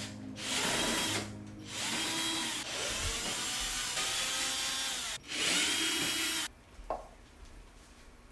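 Handheld power drill/driver run in four trigger bursts, its motor whine rising and falling in pitch with each pull, then a short click near the end.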